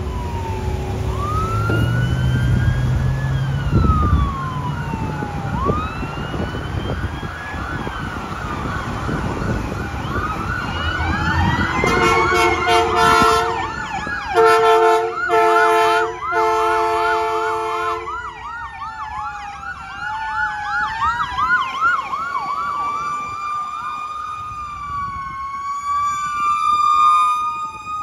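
Fire rescue trucks' electronic sirens, switching between a slow rising-and-falling wail and a fast yelp. About halfway through comes a run of horn blasts. Toward the end a second siren overlaps as two units respond together.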